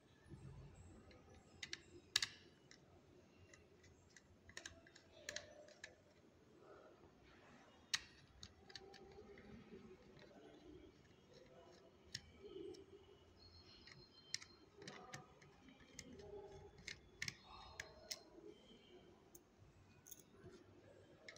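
Small plastic parts of a toy drone being handled and taken apart by hand, making scattered light clicks and taps. The sharpest clicks come about two seconds in and about eight seconds in.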